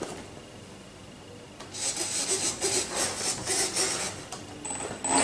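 Rhythmic scraping or rubbing, about four strokes a second, starting a little under two seconds in and stopping about half a second before the end. A brief thin high beep follows.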